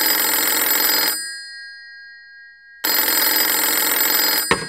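Old-style telephone bell ringing in two long rings separated by a pause of nearly two seconds, with a sharp click right at the end.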